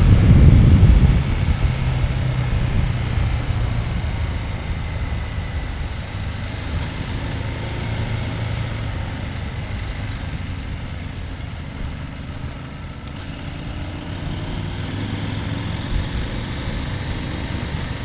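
Husqvarna Norden 901's parallel-twin engine, loud under throttle for about the first second, then settling into a steady low-rev run that slowly grows quieter.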